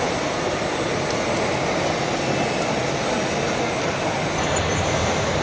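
Steady mixed noise of a busy exhibition hall where radio-controlled model trucks and hydraulic model excavators are running. The sound shifts slightly about four seconds in.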